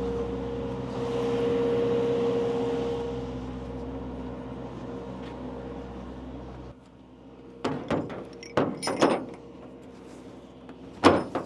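Towable Sullair air compressor engine running steadily with a low hum, until the sound drops away suddenly a little over halfway through. After that come a few sharp knocks or clanks, the loudest near the end.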